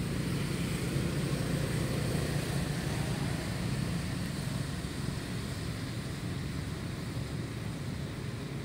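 Steady low rumble with an even hiss above it, a little louder over the first few seconds and easing slightly after.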